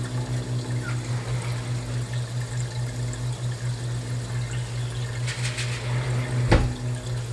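Water in an aquaponics fish tank churned by bubblers: a steady rushing splash over a steady low hum. A single sharp knock about six and a half seconds in.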